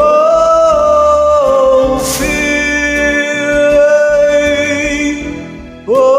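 Male voice singing long, drawn-out notes over a karaoke backing track, scooping up into each note: one held note, a second held from about two seconds in, and a new one sliding in near the end.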